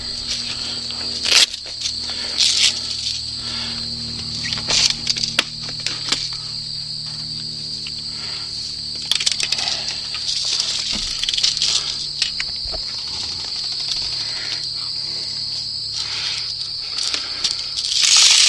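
Insects chirring steadily in the field, with scattered sharp clicks and knocks over it and a rush of hiss near the end.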